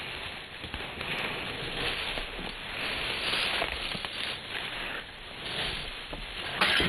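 Feet shuffling and crunching through dry fallen leaves in uneven bursts as two longsword fencers move around each other, with one sharp knock near the end.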